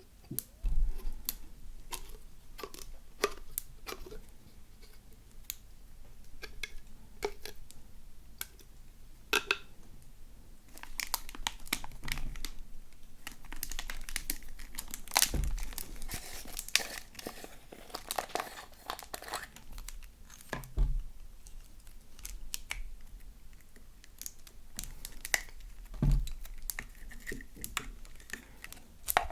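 Slime being squished and stretched by hand, with irregular crackling and popping clicks throughout and a few dull thuds.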